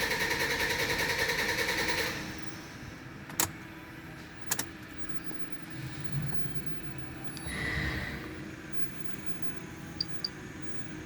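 Toyota Hilux 3.0 four-cylinder turbodiesel idling with a steady pulsing beat, then shut off about two seconds in; the engine is suspected of misfiring on a faulty injector. Afterwards come two sharp clicks or knocks and a few quieter small ticks.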